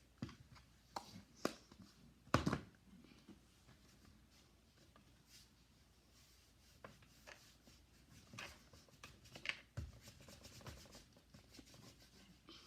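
Light handling noises of Play-Doh being worked on a tabletop: scattered soft taps and clicks, with one louder knock about two and a half seconds in and a busier run of taps near the end.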